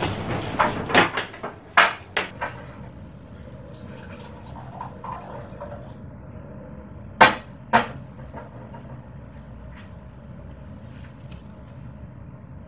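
Household knocks and clatters of objects being handled: several in the first two seconds, then two sharp knocks about seven seconds in, over a faint steady hum.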